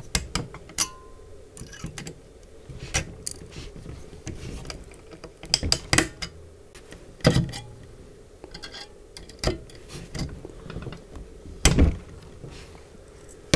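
Needle-nose pliers picking at a damaged, loosened helical thread insert in a camera's metal mounting hole: scattered small metallic clicks and scrapes, the loudest near the end.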